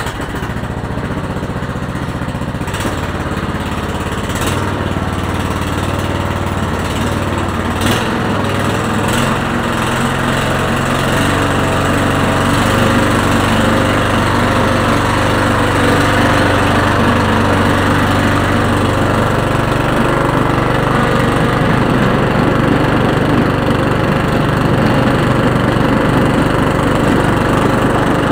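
Riding lawn tractor's engine running steadily as it pushes snow with a front plow blade, its engine note stepping up and down a little a few times.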